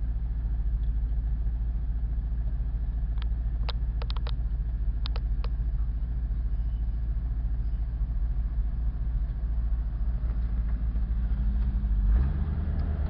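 A 4x4 truck's engine idling, heard from inside the cab, with a few sharp clicks about three to five seconds in. Near the end the engine note steps up as it is given throttle.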